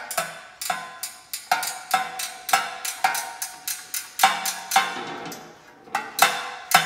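Ratcheting wrench working a bolt on a steel vending-machine spill tray: a run of sharp metallic clicks, about two a second, each leaving the steel tray ringing briefly. There is a short pause about five seconds in, then the clicks resume.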